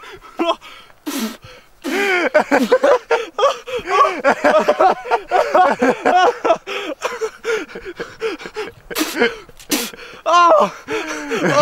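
Hard laughter, in rapid rising-and-falling bursts, broken by sharp gasping breaths.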